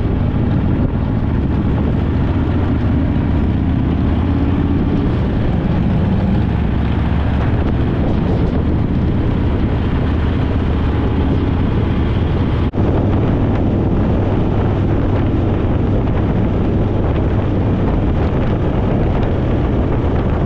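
Harley-Davidson Fat Boy's V-twin engine running steadily at road speed, with wind rushing over the microphone. A brief break about two-thirds of the way through, where the recording is cut, then the same engine and wind noise again.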